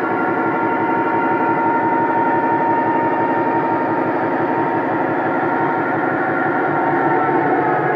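MTH Protosound 3 sound system in a USA Trains G-scale F-3 model diesel locomotive playing steady diesel prime-mover sound as the locomotives run. Several held tones sound together and ease slightly lower near the end.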